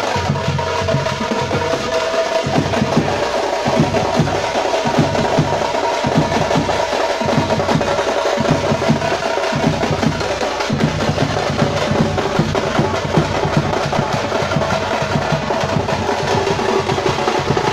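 Thappattai drum troupe playing: parai frame drums and a large bass drum beaten in a fast, dense rhythm, with a held note sounding over the drums in the first few seconds.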